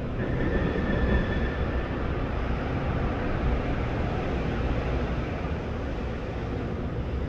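Steady low rumble of heavy vehicles or machinery running, with a thin high squeal for about two seconds near the start.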